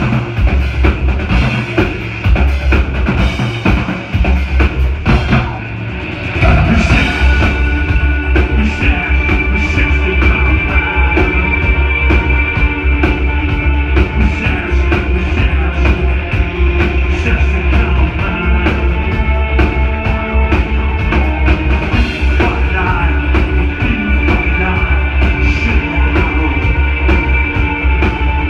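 Electro-industrial band playing live at full volume: a pounding kick drum under held synthesizer lines. The beat thins out about four to six seconds in, then the full mix comes back in.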